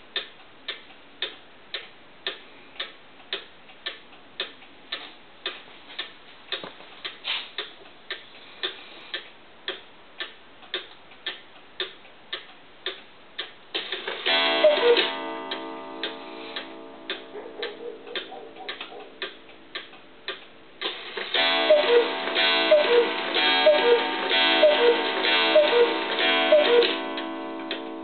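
A clock ticking steadily. About halfway through, a chime melody starts over the ticking, then a louder second phrase of repeated chiming notes follows.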